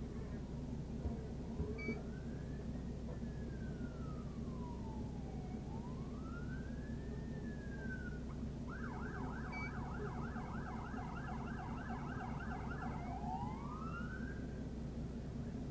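Police car siren wailing in slow rising and falling sweeps, switching about nine seconds in to a fast yelp of roughly four sweeps a second for some four seconds, then back to the wail. A steady low hum runs underneath.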